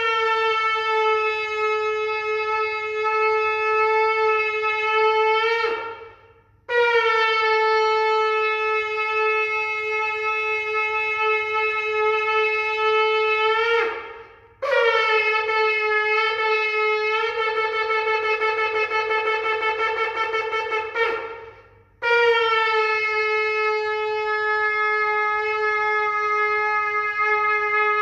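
Shofar (ram's horn) sounding four long sustained blasts with short breaths between them, each ending with a quick upward flick in pitch. The third blast turns rougher and breathier in its second half.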